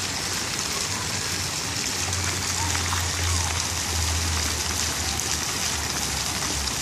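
Splash-pad fountain jets spraying up and splashing back onto the wet tiled floor: a steady rush of water.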